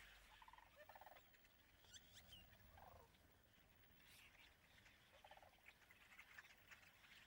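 Faint, short rattling bird calls, four in all, with a thin high chirp about two seconds in.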